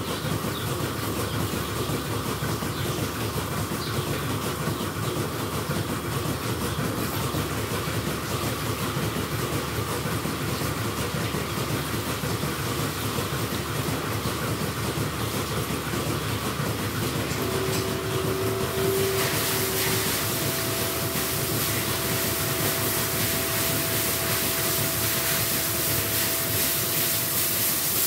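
Milking shed machinery running steadily with a continuous rattling clatter. About two-thirds of the way through, a steady hum and a louder hiss join in.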